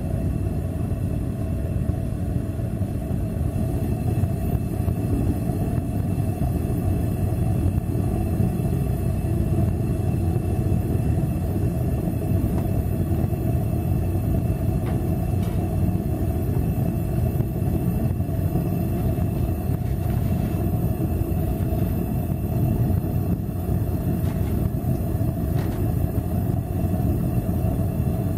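Homemade propane-fired furnace burning steadily: a constant low rumble from the burner flame while a steel slab heats inside.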